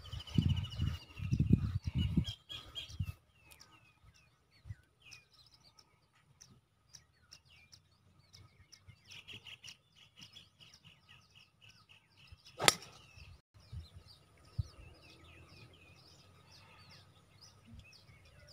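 A single sharp crack about twelve and a half seconds in: a golf driver striking the ball off the tee. Birds chirp throughout, and low rumbles on the microphone fill the first few seconds.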